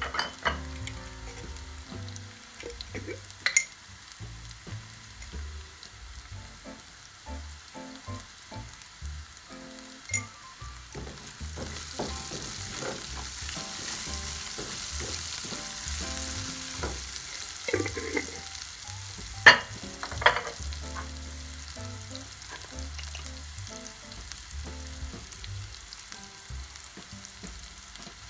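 Sliced red onions sizzling as they fry in a nonstick pan, stirred with a wooden spoon. A steady hiss swells a little around the middle, with a few sharp knocks and clicks, the loudest about two-thirds of the way through.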